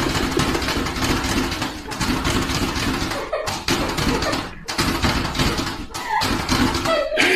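Plastic cat flap rattling and clattering as a cat pushes and drags it, a dense run of knocks and clicks that breaks off briefly twice in the middle.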